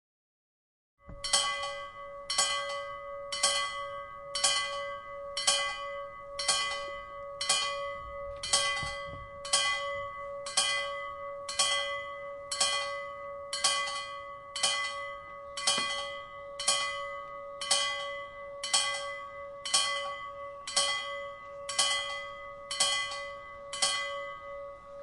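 A bell struck over and over at an even pace of about once a second, each strike sharp and bright, with a steady ringing tone held underneath. It starts after about a second of silence.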